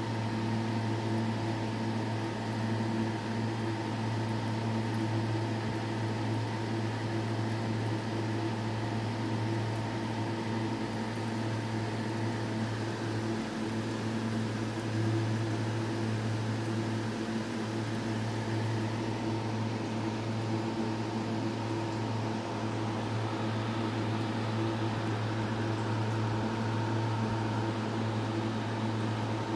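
Aquarium sump filter's pump humming steadily: a constant low electrical hum with a faint hiss of running water and air over it.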